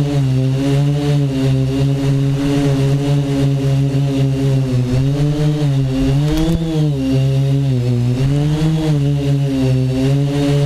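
Tricopter's three brushless motors and propellers buzzing in flight, heard from the camera on board. The pitch wavers with the throttle, climbing and then dropping between about five and nine seconds in.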